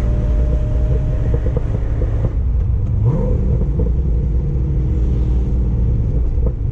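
Corvette C6 Z06's 7.0-litre LS7 V8 running steadily at fairly low revs under light load, with a brief rise in revs about three seconds in.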